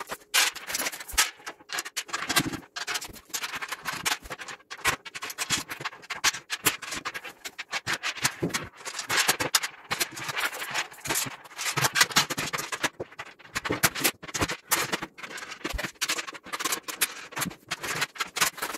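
Steel bolts and M8 locking nuts being handled and pushed through the joining plate of a steel plow blade by hand: a continuous run of quick metallic clinks, taps and scraping.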